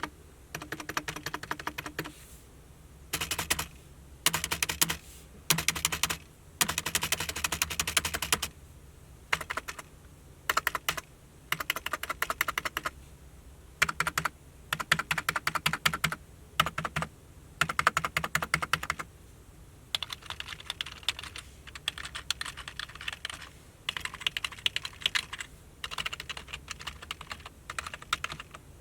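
Typing on a Micronics K630W wireless membrane keyboard: runs of rapid key presses, each a second or two long, broken by short pauses.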